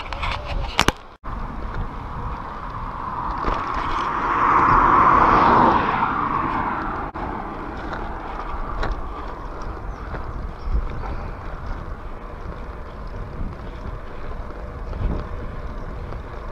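Wind buffeting a handlebar-mounted camera's microphone while riding a bicycle along a road, with a steady low rumble. A few sharp clicks and a brief cut come about a second in. A louder rushing sound swells a few seconds in and fades away again about two seconds later.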